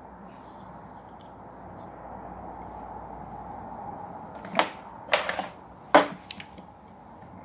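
Three sharp knocks of hard objects being handled or set down, about four and a half, five and six seconds in, with a few light clicks after them over a faint steady hiss.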